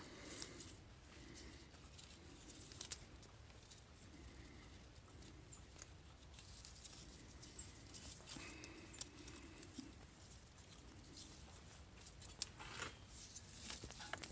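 Near silence with faint scattered clicks and ticks.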